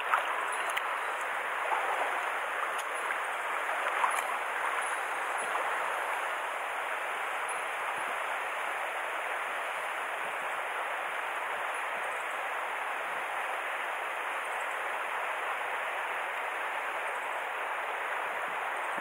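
Mountain stream water rushing steadily, with a few faint clicks in the first few seconds.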